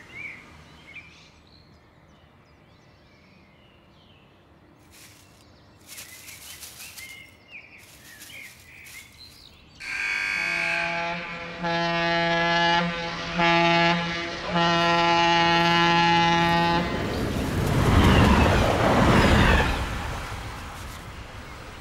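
Train horn sounding four blasts, the last one the longest, followed by the rushing noise of a train passing and fading away. Before the horn there is only faint outdoor ambience with a few chirps.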